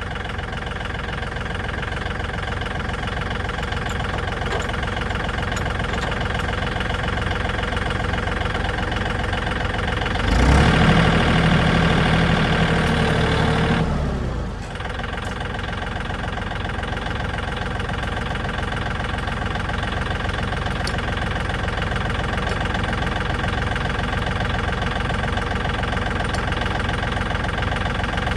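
Tractor engine idling steadily; about ten seconds in it runs louder and harder for some four seconds as it takes up the pull on the chassis, then drops back to idle.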